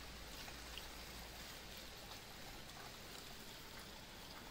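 Faint, steady trickle of liquid poured from a plastic jug through a plastic funnel into a lawn mower engine's tank.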